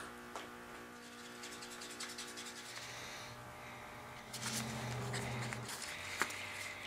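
Gloved hands handling small plastic containers and lids and mixing epoxy in a paper cup: light scraping and rustling with small clicks, a busier stretch of scraping past the middle, and one sharp click about six seconds in.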